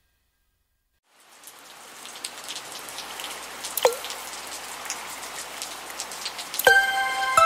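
Rain begins about a second in and grows steadily louder, with a few sharp drops plinking, one about four seconds in. Music with bright sustained notes starts near the end.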